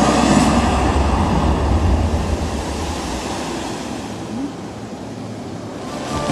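A fountain and fireworks show running: a deep rumble under a rushing noise, strongest at first, then fading away over a few seconds before swelling again at the very end.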